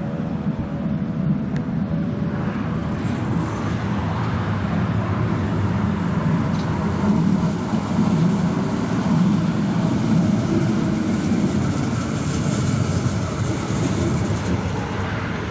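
Duewag M8C eight-axle, chopper-controlled high-floor tram approaching and pulling into a stop, its wheels and running gear on the rails growing louder as it comes close and passes alongside.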